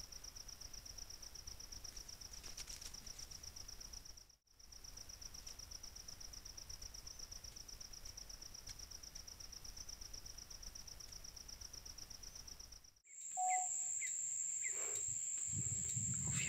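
Steady, high-pitched, rapidly pulsing trill of night insects, typical of crickets or katydids, broken by a brief dropout about four seconds in. Near the end it cuts to a louder, even higher, unbroken insect buzz, with other faint sounds under it.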